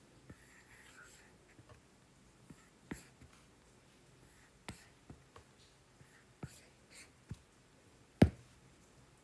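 Stylus tapping and sliding on an iPad's glass screen while painting: about a dozen scattered light taps, the loudest one near the end.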